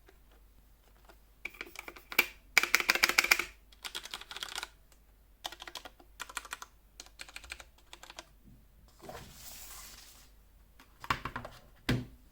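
Typing on a Ducky One 2 SF mechanical keyboard with brown switches: bursts of keystrokes with short pauses between them, the fastest run about three seconds in. A soft rustle follows, then two heavier knocks near the end.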